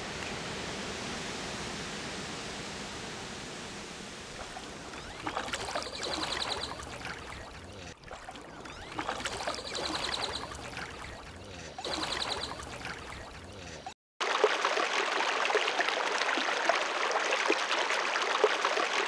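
Water rushing over a low river weir, a steady hiss, with three louder bursts carrying sharp high notes midway. After a sudden cut about 14 seconds in comes the louder splashing of water pouring over a small concrete spillway dam.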